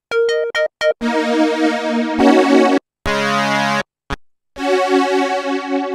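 Arturia SynthX V software synthesizer, an emulation of the Elka Synthex, playing keys presets one after another. A few short plucked notes come first, then held chords whose tone changes from patch to patch, with brief silent breaks between them.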